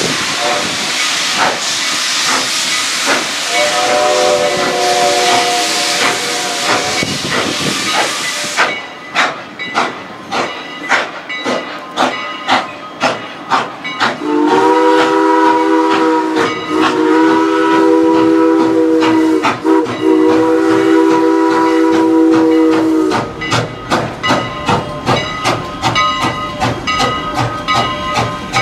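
Steam locomotive venting steam from its cylinders in a loud hiss, with a short chime-whistle blast about four seconds in. After about nine seconds the hiss cuts off and the engine chuffs as it starts away, and a long multi-tone chime whistle sounds in three blasts with two short breaks. The chuffs quicken near the end.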